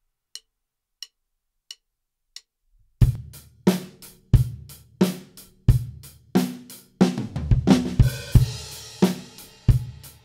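Acoustic drum kit: four evenly spaced clicks count in, then a kick-and-snare groove starts about three seconds in. Around seven seconds a quick fill runs down the toms and lands on a crash cymbal, and the groove carries on.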